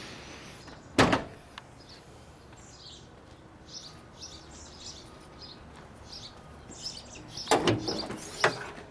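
A car door shuts with a single heavy thump about a second in, over faint birdsong. Near the end comes a quick cluster of knocks and clunks.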